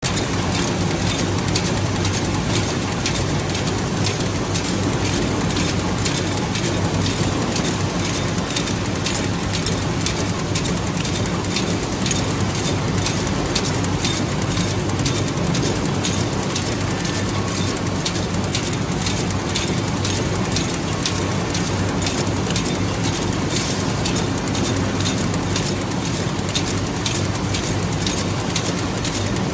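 Automatic disposable-spoon feeding and packaging machine running: a steady mechanical hum with rapid, continuous clicking and rattling as it feeds plastic spoons onto its conveyor.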